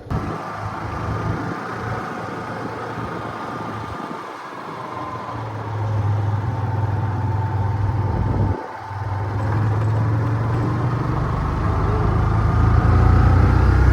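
Motorcycle engine running while riding, a steady low drone. It drops away briefly about two-thirds of the way through, then picks up and grows louder near the end.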